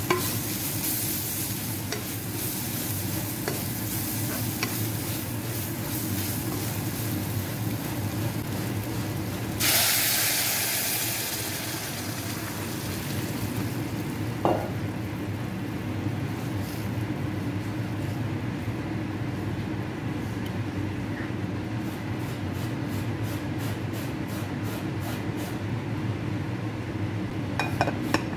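Chopped carrot, onion and garlic sizzling in a saucepan while a spatula stirs them. About ten seconds in, vegetable stock goes into the hot pan with a sudden loud hiss that fades over a few seconds into a steady simmer. A glass lid clinks onto the pan near the end.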